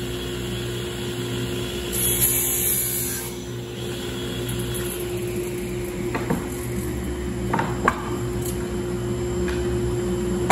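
Table saw running with a steady hum. Its blade cuts through plywood for about a second, around two seconds in, then a few sharp knocks of cut wood pieces being handled and set down.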